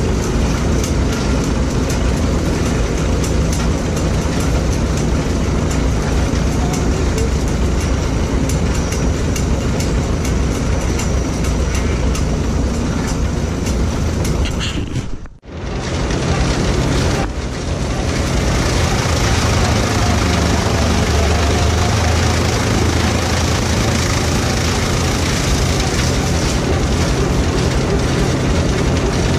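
A 1941 Farmall H tractor's four-cylinder engine running and driving a Gehl PTO corn chopper and blower, a loud, steady mechanical noise. It cuts out for a moment about halfway through, then comes back much the same.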